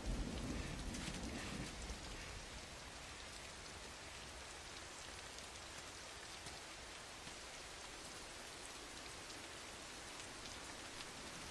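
Steady rain falling, an even hiss, with a low rumble dying away over the first two seconds.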